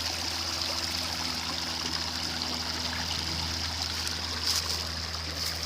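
Small creek running and trickling steadily, with a few faint clicks near the end.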